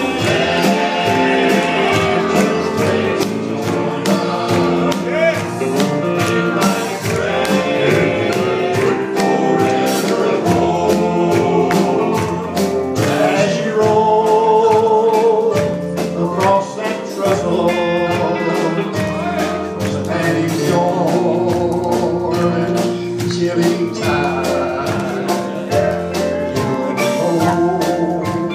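Male southern gospel group singing in harmony, backed by a live band with drums and electric guitar keeping a steady beat.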